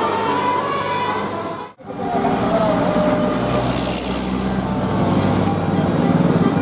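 Bus telolet horns (Basuri multi-tone horns) playing a melody of stepped notes over a low engine rumble. It breaks off suddenly a little under two seconds in, then resumes with the engine running and more horn notes.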